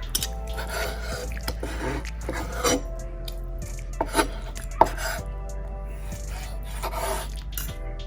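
Knife slicing through a cooked ribeye steak on a cutting board: repeated scraping strokes with a few sharp knocks of the blade on the board, the loudest about five seconds in. Faint music plays underneath.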